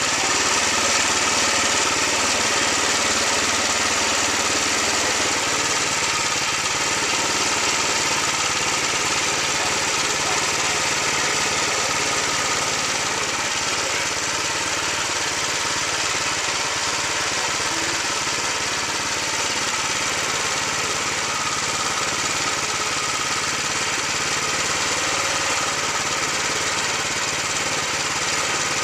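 Wood-Mizer LX25 band sawmill running steadily, its 7 hp Kohler engine driving the band blade through a white oak log, engine hum under a steady hiss of the cut.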